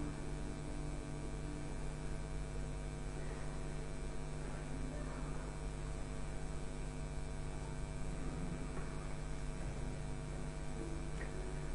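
Steady electrical mains hum, with faint scattered noises over it.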